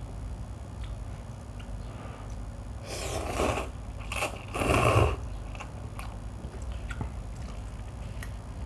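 Cup noodles being slurped off a fork: three loud slurps in quick succession about three to five seconds in, with faint clicks and scrapes of the fork in the cup before and after.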